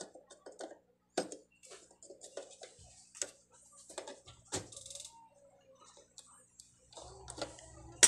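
Pliers working the metal nut of a microphone jack on an amplifier's back panel to loosen and remove it: a run of small, irregular metallic clicks and scrapes. A low hum comes in near the end, followed by a sharper click.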